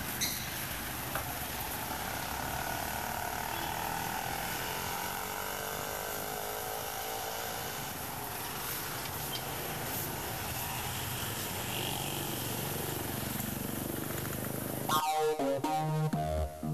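A steady, noisy ambience with faint drifting tones. About fifteen seconds in it cuts abruptly to an electronic pop track with a synth riff and a beat.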